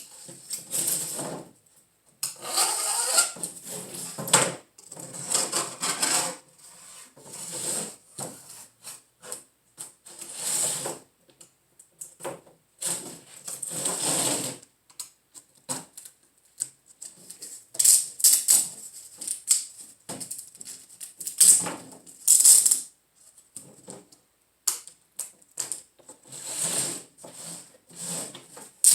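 A small screwdriver scraping and prying old rubber screen spline out of a window screen frame's channel. The sound comes in irregular scratchy bursts with short pauses, as the brittle core comes out bit by bit.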